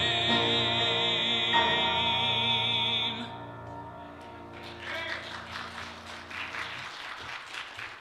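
Final held chord of a gospel song, sung with vibrato over piano, which stops about three seconds in. A few seconds of light applause follow.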